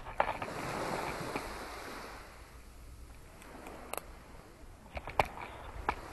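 Small waves washing onto a sandy beach: one wash swells and fades in the first two seconds. A few sharp clicks close by, loudest at the very start and about five seconds in.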